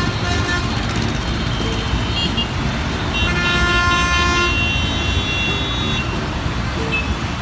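Heavy machine engine rumbling steadily, with horn toots sounding over it, a short one about two seconds in and a longer one around three to four seconds in.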